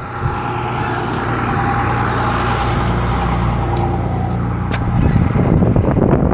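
A motor vehicle's engine running with a steady hum that drops away about five seconds in, with a few sharp clicks over it.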